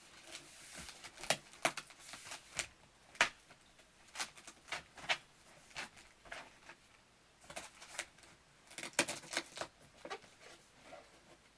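Packing materials being handled while a boxed keyboard is unpacked: irregular short rustles and crackles, clustered in several bursts.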